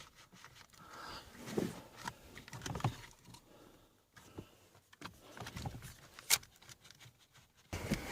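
Irregular clicks, knocks and rustles of hands and tools working on a car's steering column around the light and indicator stalk, with one sharp click about six seconds in.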